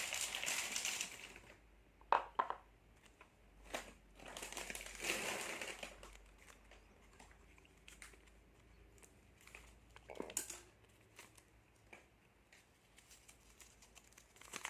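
Small plastic snack packets crinkling and crackling as they are handled and torn open, in several bursts with a few sharp clicks between.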